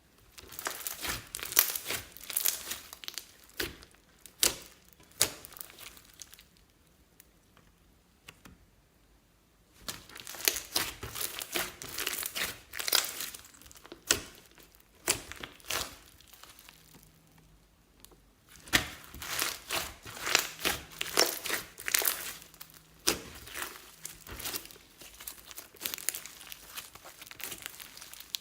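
Glossy slime being squeezed and worked by hand, making rapid clicking pops in three bouts with short pauses between them.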